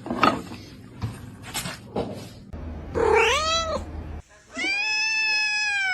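A cat meowing twice: a short call that rises and falls about three seconds in, then a long drawn-out meow near the end that drops in pitch as it ends. A few sharp knocks come before the meows.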